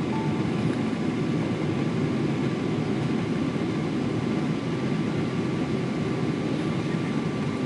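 Steady low rumble of a moving vehicle heard from inside, even and unbroken, with a faint high steady tone running through it.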